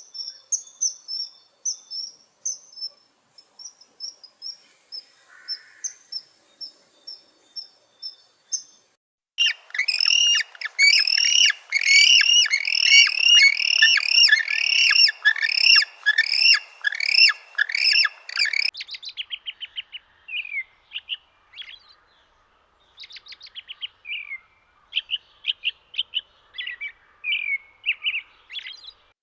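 Small birds chirping: a steady series of thin, very high chirps, then from about nine seconds in a louder, dense chorus of many overlapping chirps, which breaks off near nineteen seconds into scattered single chirps.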